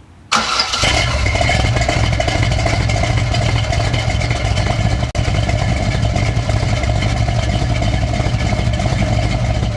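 Chevrolet Bel Air's 454 big-block V8 starting up about a third of a second in and settling straight into a loud, steady idle.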